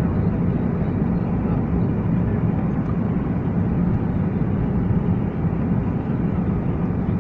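Airliner cabin noise during the descent to land: the engines and rushing air make a steady, low, even rumble.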